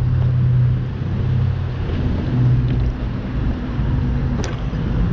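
A vehicle engine idling close by: a steady low hum, with one short click about four and a half seconds in.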